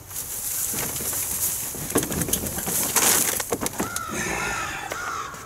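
Dry grass clippings and lawn debris poured from a mower's grass-catcher bag into a plastic recycling bin set up as a funnel over a paper lawn bag. The material makes a steady hissing rustle as it slides and falls, heaviest about two to three seconds in.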